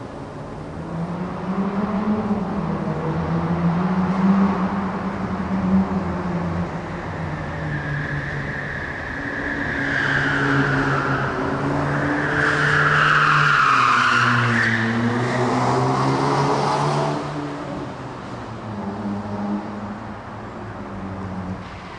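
Cars passing along a city street at night, several in turn, their engine pitch rising and falling. The loudest pass is between about ten and seventeen seconds in.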